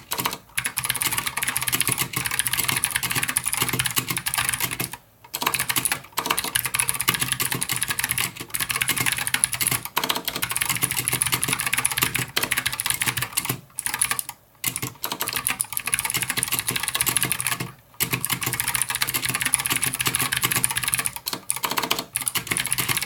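Fast typing on an Anne Pro mechanical keyboard with Gateron Blue clicky switches: a rapid, continuous clatter of key clicks with brief pauses a few times, stopping at the end.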